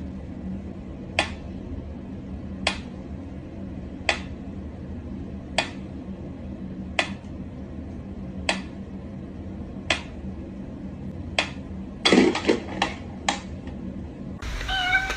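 Sharp clicks repeating evenly, about one every second and a half, over a faint low hum. They are followed a little after twelve seconds in by a quick cluster of louder knocks.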